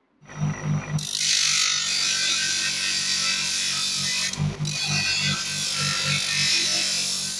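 Bench grinder motor humming while a rusty steel tong handle is pressed against its spinning abrasive disc, a steady hissing grinding noise as the rust is sanded off. The grinding sets in about a second in and breaks off briefly about four seconds in when the handle is lifted.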